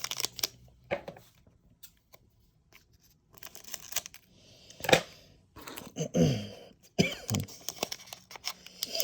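Foil Pokémon booster pack wrapper being torn open and crinkled by hand, in short crackling rips and rustles.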